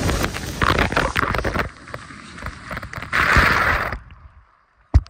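Splashing and rushing water in uneven bursts, cutting off about four seconds in, followed by a single sharp knock near the end.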